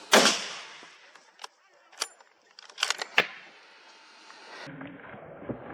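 A single rifle shot with a short echoing tail, followed about two to three seconds later by a few sharp metallic clicks and knocks.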